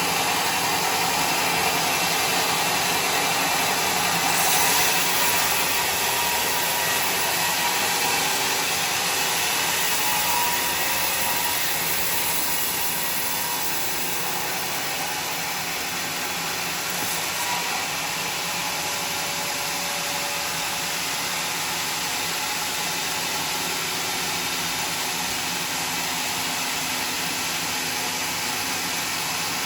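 Sawmill running steadily, sawing timber, a little louder for the first dozen seconds, then settling slightly quieter.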